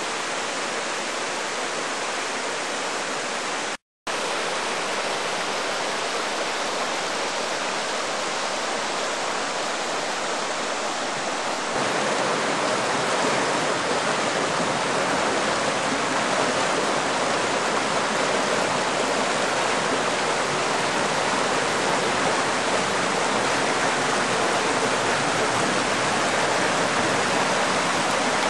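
A shallow rocky river rushing over stones and small cascades: a steady hiss of running water. It drops out for a moment about four seconds in, and from about twelve seconds on it is louder and fuller.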